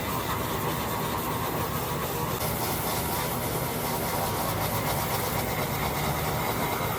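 A motor running steadily with an even hum.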